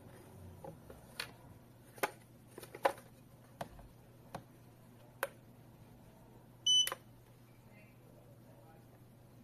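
Hands handling the plastic case of a GOOJPRT MTP-3F portable thermal receipt printer make several light clicks and taps. About two-thirds through, the printer gives one short high beep as it is switched on.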